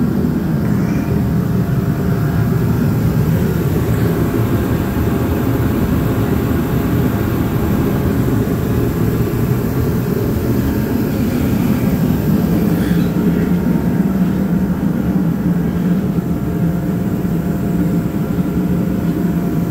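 Steady low rumbling hum of a running shop unit heater, its fan blowing continuously.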